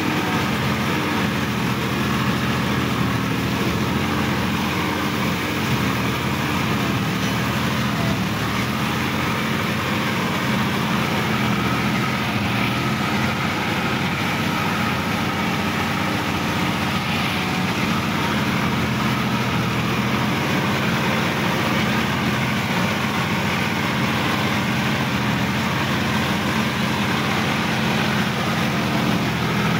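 Sonalika DI-50 RX tractor's diesel engine running steadily at an even pitch, heard close up from the driver's seat.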